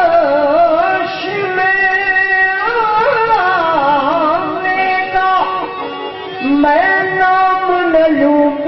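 Qawwali music: a man singing long, wavering, ornamented phrases over harmonium accompaniment.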